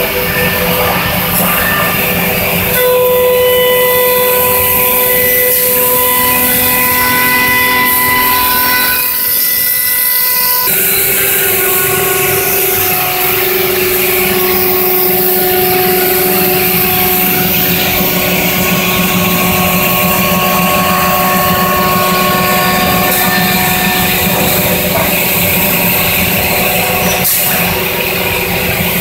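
Biesse Skill 1536 CNC router's spindle running and its cutter milling the wooden handrail part, a loud steady whine of several held tones over cutting noise. About ten seconds in the tones change to a different, lower set and then hold steady again.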